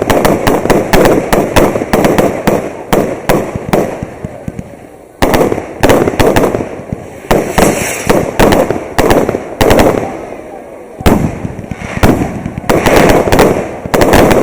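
Fireworks display: rapid volleys of loud bangs and crackling bursts, with two short lulls, about four seconds in and again about ten seconds in.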